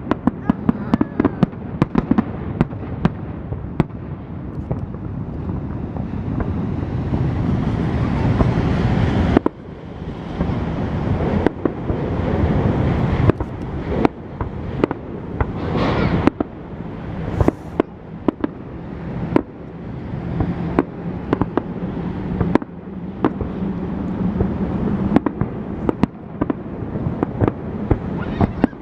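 Fireworks display: a rapid, irregular series of sharp bangs and booms with crackling, over a dense low rumble of bursts.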